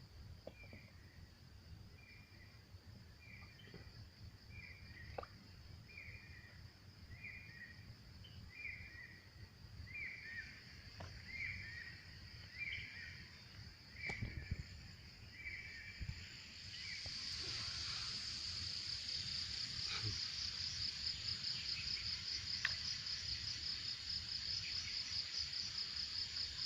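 Insects buzzing steadily in a high pitch, swelling louder with a fast pulsing about two-thirds of the way through. Through the first half an animal repeats a short call about once a second, with a few faint knocks here and there.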